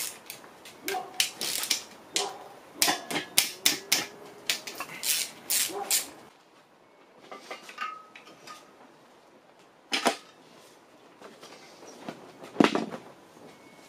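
Ratchet wrench clicking in quick irregular spurts as bolts are worked on an engine block, for about the first six seconds. Then two single metal knocks, about ten and twelve and a half seconds in.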